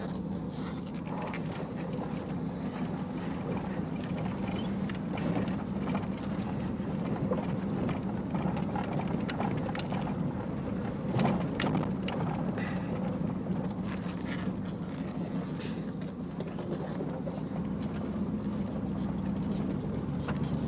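Old Chevrolet 2500 4x4 pickup's engine running steadily with a low, even drone, heard from inside the cab while the truck drives, with a few light clicks and rattles around the middle.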